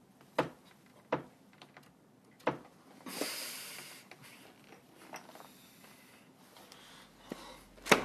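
Handling noise as a cardboard Happy Meal box is pulled out of a bag: a few sharp taps, a brief rustle about three seconds in, and a sharp knock near the end.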